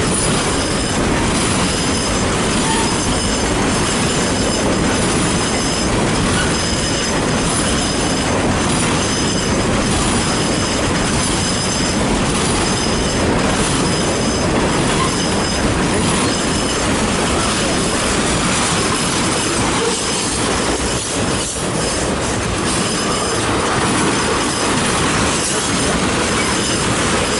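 Long CN freight train rolling past close by: a steady loud rumble and clatter of wheels on rail, with thin high squealing tones from the wheels coming and going.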